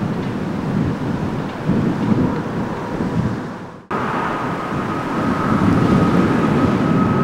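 Jet airliner engines rumbling low and steady from a departing Airbus A320. The sound cuts off abruptly about four seconds in. It resumes as a departing Boeing 737 MAX 8's CFM LEAP-1B engines, with a steady high whine over the rumble.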